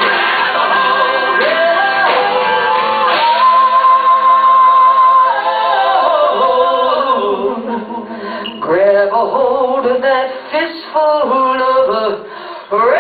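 Live band performance of a rock song with singing over the band, including a long held note about three seconds in. The music turns choppier in the second half, with short breaks.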